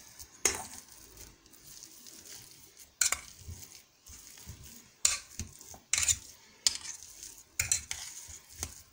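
Metal potato masher pressing boiled potatoes in a steel pan: soft mashing with irregular sharp clinks of the masher striking the pan's metal side and bottom.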